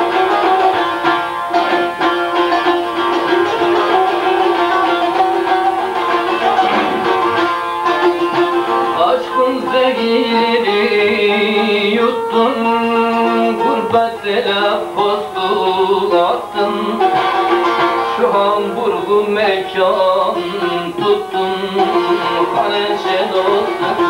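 Bağlama (Turkish long-necked saz) being played: a busy plucked folk melody over steady droning strings.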